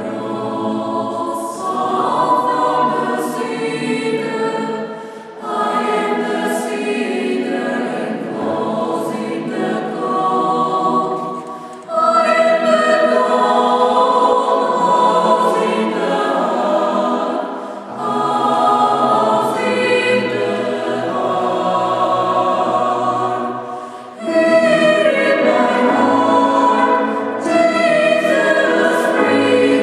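Mixed choir of male and female voices singing with grand piano accompaniment, in phrases of about six seconds separated by short breaths.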